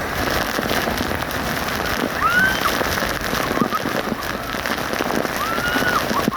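Waterfall rushing steadily. Two short arched whistles sound over it, about two and about five seconds in.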